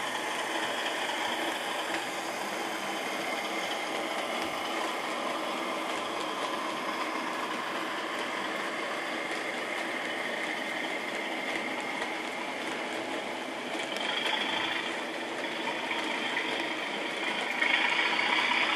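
Model railway Class 37 locomotive hauling a train of model hopper wagons along the track, a steady running noise with a faint hum, getting louder near the end as the wagons pass close by.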